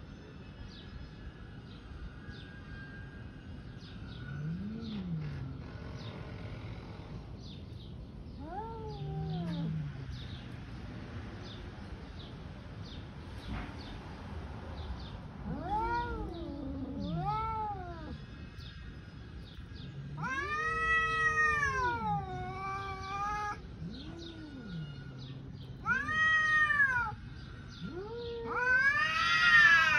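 Two cats in a standoff caterwauling at each other: low growls at first, then a run of drawn-out yowls that rise and fall in pitch and grow louder, the loudest near the end.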